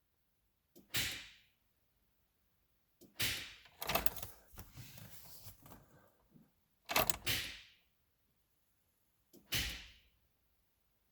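Mercedes-Benz ML430 giving a sharp click each time the key is turned, five times at intervals of two to three seconds, one of them followed by a run of smaller clicks. The engine does not crank, although the battery is fully charged.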